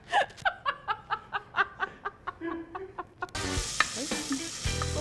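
A woman laughing in a quick run of short bursts, cut off abruptly about three seconds in.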